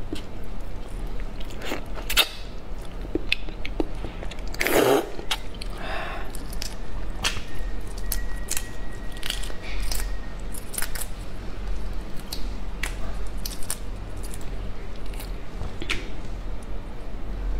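Shell of a soy-sauce shrimp being peeled by hand close to the microphone: irregular small clicks and crackles of shell cracking and pulling away, with a louder, longer crackle about five seconds in.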